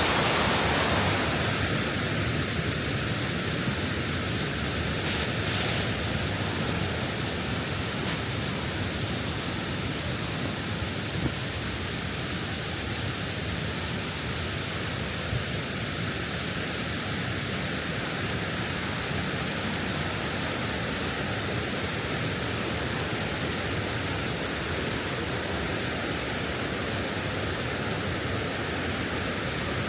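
Waterfall in a mountain gorge: a steady rush of falling water, a little louder at first, with two faint clicks partway through.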